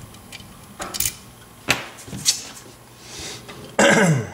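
Small metal clicks and scrapes of a seven-pin BEST cam lock being worked with its key and handled, with a louder scraping rattle near the end.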